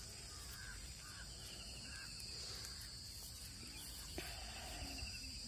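Steady high-pitched drone of insects such as crickets, running without a break, with a few faint chirps and a soft knock or two.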